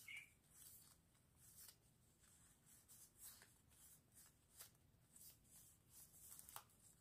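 Faint, irregular rustling and flicking of handmade paper packets being leafed through by hand.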